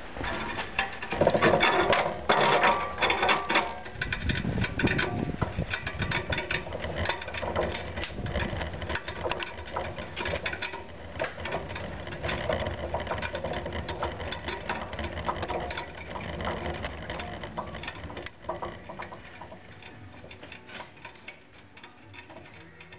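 Clattering and rattling of a pouring shank carrying a crucible of molten cast iron, heard through a camera fixed to the shank as it is carried. Loudest in the first few seconds, it fades toward the end.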